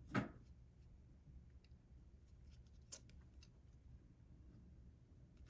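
Near silence with faint clicks and rustles of a crochet hook working yarn, and one short sharp click just after the start.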